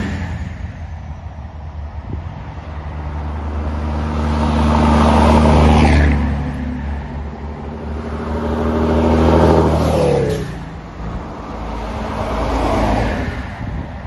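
Heavy diesel trucks, a vintage Scania among them, driving past one after another. Each engine grows louder as it approaches, then drops and falls in pitch as it goes by, three times in all.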